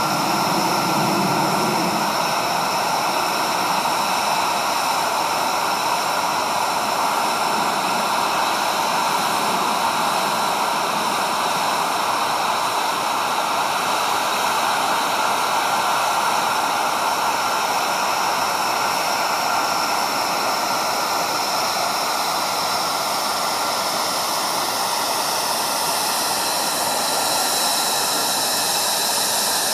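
Jet noise from an F-22 Raptor's twin Pratt & Whitney F119 turbofans as the fighter manoeuvres overhead: a loud, steady rush with whining tones that slowly drift in pitch.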